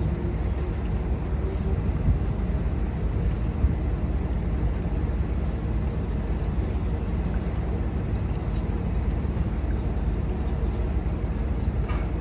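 A steady, loud low rumble that runs on without a break.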